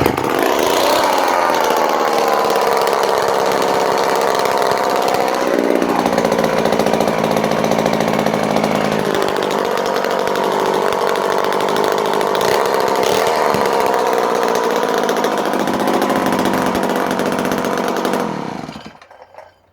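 Vintage Homelite C51 two-stroke chainsaw, bar and chain removed, catching abruptly and running loud and steady for about eighteen seconds, with a shift in pitch about six seconds in, then shut off and winding down near the end.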